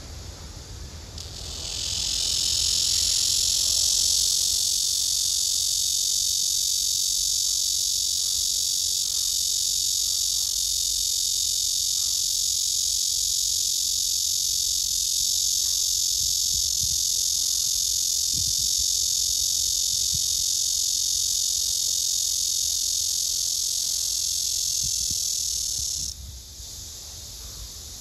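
Blackish cicada (Cryptotympana atrata) singing one long, loud, steady buzz that starts about a second in and cuts off abruptly near the end.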